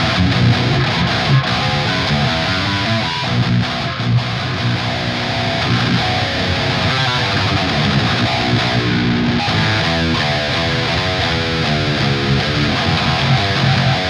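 8-string electric guitar with Invander humbucker pickups played with a distorted tone, riffing continuously.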